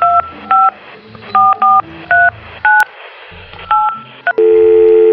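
Telephone keypad dialing tones: about nine short two-note DTMF beeps at uneven intervals as a number is keyed in, then a steady two-note telephone line tone comes on near the end as the call goes through.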